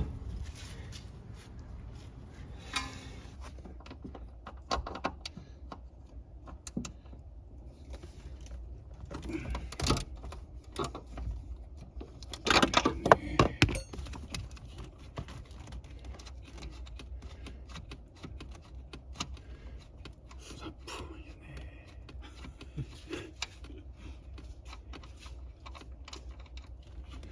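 Metal hand tools clinking and knocking on the suspension while the strut fasteners are worked loose, with a louder run of rapid clicks about halfway through.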